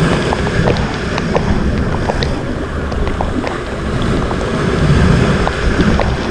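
Rough sea waves and gusting wind, with wind rumbling on the microphone and swelling about two thirds of the way through.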